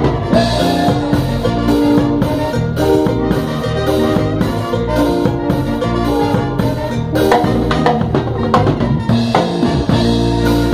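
Live salsa band playing, with drum kit and percussion over bass and held chords.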